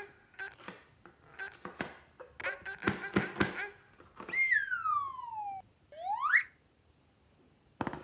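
Cartoon sound effects. For the first few seconds there is high-pitched, sped-up cartoon voice chatter. Then a whistle slides down in pitch for over a second, and after a short gap a quick whistle slides back up.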